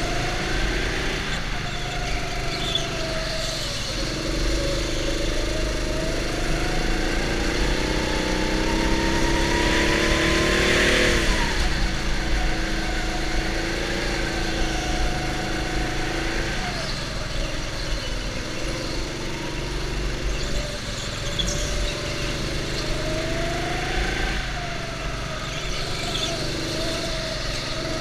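Go-kart engine running hard, its pitch climbing steadily on acceleration and dropping sharply about eleven seconds in as the kart lifts off, then rising and falling again with each straight and corner.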